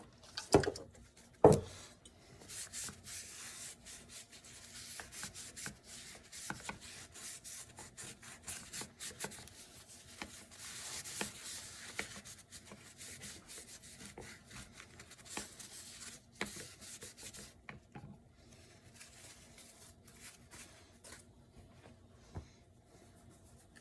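Hand wiping and scrubbing the sanded plastic air box with denatured alcohol, a fast, brushy rubbing that goes on for most of the stretch and thins out near the end. Two sharp knocks come in the first two seconds, and a lone click comes near the end.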